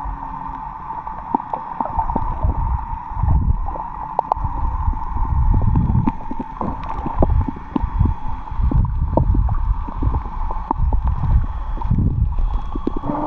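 Muffled water sounds recorded underwater: irregular low surges of water moving against the camera every second or two, with scattered small clicks and a steady hum underneath.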